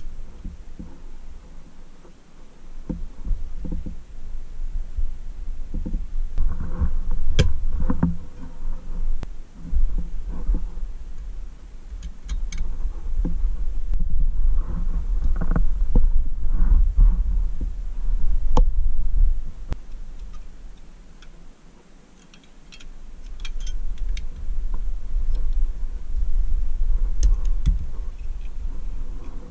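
Hands handling and fitting together small pressed-steel toy forklift body parts on a carpeted bench: dull low thumps and rubbing, with scattered light metallic clicks and ticks.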